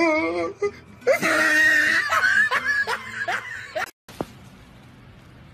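A person laughing in a high, wavering voice, then a longer fit of laughter with squeals. It cuts off abruptly about four seconds in, leaving only a faint hiss.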